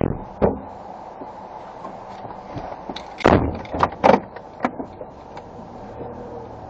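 A car door is shut about three seconds in, among knocks and rustles of someone getting into the driver's seat.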